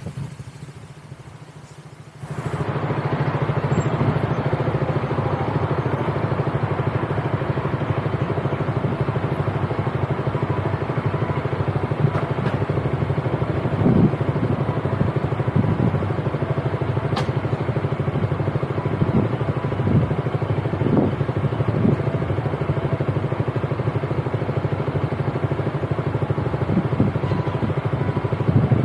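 Motorcycle engine running steadily under way, a low even engine note. It comes in sharply about two seconds in after a quieter start, with a few brief knocks along the way.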